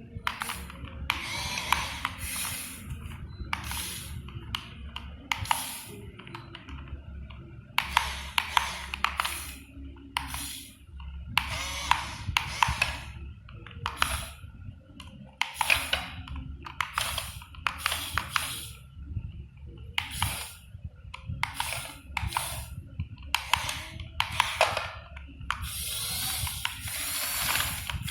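Radio-controlled model excavator at work: a steady low motor hum with frequent short, irregular bursts of higher whirring and scraping as it moves.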